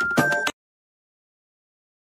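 A whistle ringtone, a whistled tune held on a high note over a beat, cuts off abruptly about half a second in, followed by dead silence.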